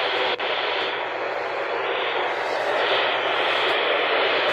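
Steady static hiss from a weather radio receiver with no voice coming through, with a brief dropout just under half a second in.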